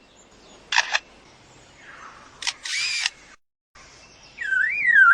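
Superb lyrebird imitating a camera shutter: a single click, then a longer whirring burst like a motor-driven shutter. Near the end it switches to an imitation of a car alarm, a loud warble rising and falling about twice a second.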